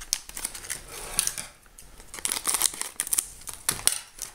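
Scissors cutting open a metallised anti-static bag: a run of quick, irregular snips and crisp crinkles of the plastic.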